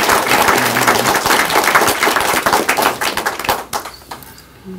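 A small audience clapping, the applause dying away about three and a half seconds in.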